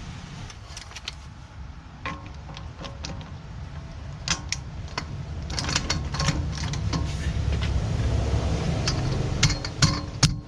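Irregular metallic clicks and clinks of hand tools on metal car parts, some ringing briefly, over a low steady rumble. They come more often after about four seconds, with the loudest knocks near the end.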